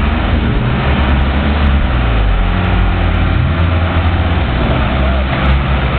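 A 4x4 Jeep's engine revving hard, rising and falling in pitch, as its wheels spin and churn through deep mud to climb out.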